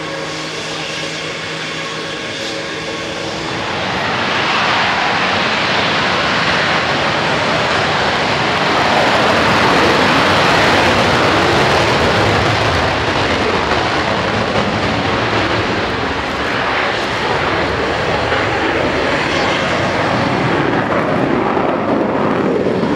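Lockheed Martin F-35 fighter's Pratt & Whitney F135 jet engine. At first it gives a steady whine with several held tones while the jet holds on the runway. About four seconds in it goes to takeoff power, and a loud rushing jet noise builds as the fighter takes off and climbs, loudest around ten seconds in.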